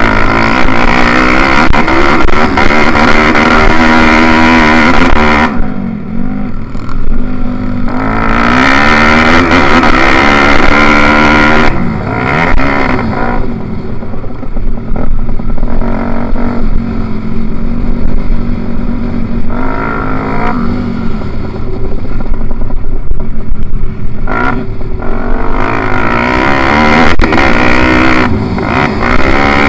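Pit bike engine at race pace, its note climbing hard under throttle and falling away when the throttle is shut, over and over. It briefly eases off about six seconds in and again around twelve and twenty-four seconds. A hiss of wind on the onboard microphone sits over it.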